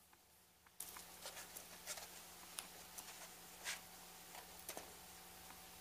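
Faint, scattered clicks and light taps as a silver-plated rhinestone bow is handled and pressed by hand into Play-Doh, over a faint steady hum.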